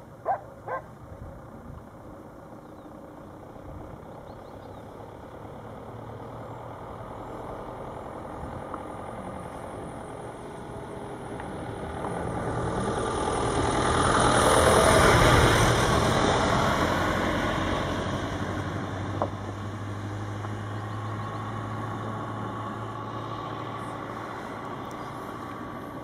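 A motor vehicle passing by: its noise grows louder to a peak about fifteen seconds in, then fades, leaving a low steady hum. Two short sharp knocks come just after the start.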